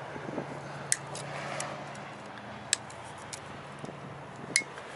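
Excess zip-tie tails being snipped off with cutters: three sharp snaps about 1.8 seconds apart, with fainter clicks between them, over a steady low hum.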